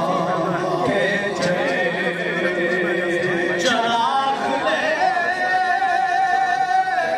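A man singing a Punjabi lament unaccompanied, drawing out long wavering notes with no clear words. About halfway through the voice slides up into a higher held note.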